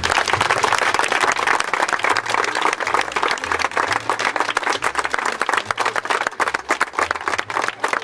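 A crowd applauding: dense, steady hand clapping that grows a little sparser near the end.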